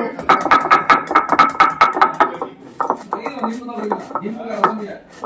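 Stone roller grinding roasted cumin seeds and black peppercorns on a flat stone grinding slab: rapid crackling clicks as the seeds crack under the stone, thinning out after about two seconds.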